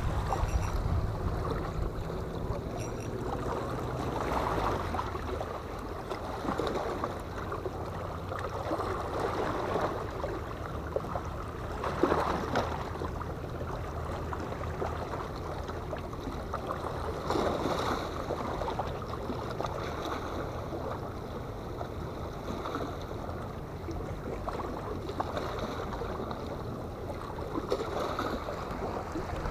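Sea water lapping and washing against breakwater rocks, with a steady low hum underneath and a couple of louder washes partway through.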